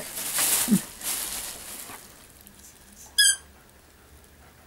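Plastic bag rustling and crinkling as a dog pushes her nose into it among torn toy stuffing, fading out over the first second or two. About three seconds in comes a single short, high squeak.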